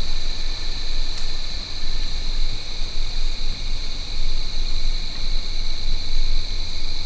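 Steady chorus of crickets and other insects, a continuous high-pitched buzz, over a constant low rumble.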